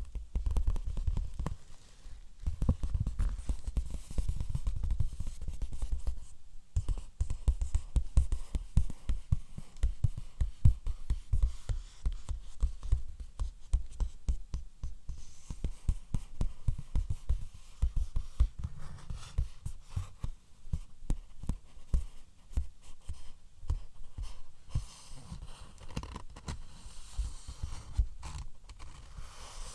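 Rapid, irregular tapping on objects close to the microphone, many taps a second. For the first few seconds it is denser and more continuous, then it breaks into distinct quick taps.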